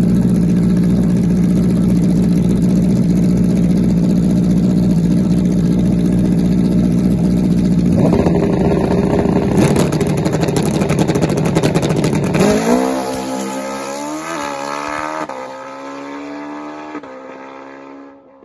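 Pro Street drag bike engine running loud and steady on the starting line. About eight seconds in the note changes and a rapid crackling sets in. About twelve seconds in the bike launches, its pitch climbing and dropping back through several gear shifts as the sound fades away down the track.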